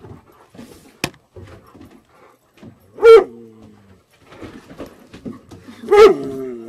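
A large dog giving two loud barks about three seconds apart, each sliding down in pitch as it trails off, with a third starting right at the end. A single sharp click sounds about a second in.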